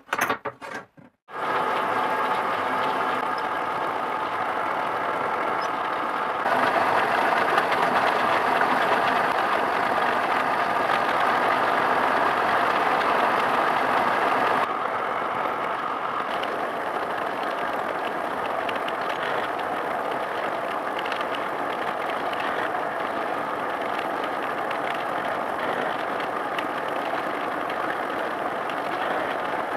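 A few clinks of small steel gears sliding across a workbench, then a milling machine runs steadily, its spindle drilling holes into a steel plate. The machine noise is louder for several seconds in the middle.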